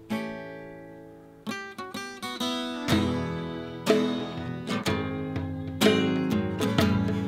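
Instrumental break of a folk song. An acoustic guitar strikes a chord that rings out, then plays a run of quick strums. About three seconds in, a fuller backing with low notes joins while the guitar keeps strumming chords.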